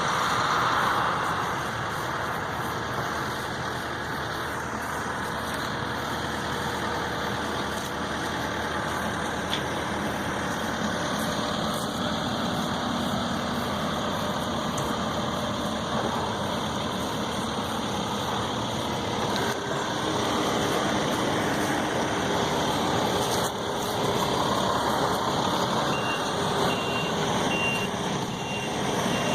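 Heavy construction machinery engines running steadily, with a reversing alarm beeping at an even pace near the end.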